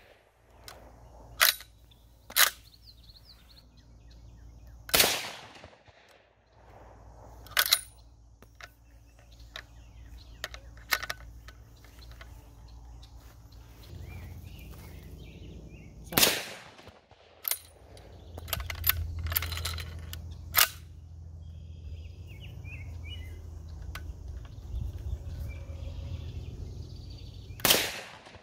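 Winchester-Lee M1895 Navy straight-pull rifle (6mm Lee Navy) being fired: sharp shots with a short ring after each, spaced several seconds apart. Shorter, sharper clacks in between come from the straight-pull bolt being worked.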